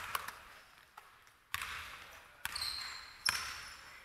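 A basketball bouncing on a hardwood gym floor, several separate thuds each echoing in the large hall, with short sneaker squeaks on the court about two and a half to three and a half seconds in.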